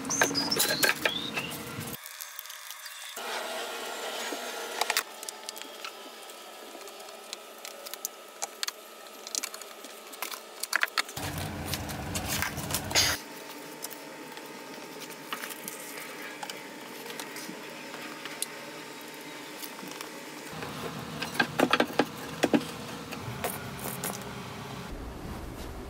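Scattered clicks, taps and light scrapes of hand work on a glue-up of 2x4 boards: the glue bottle, a spreader and the boards being handled, with a cluster of sharp clicks near the start and again near the end.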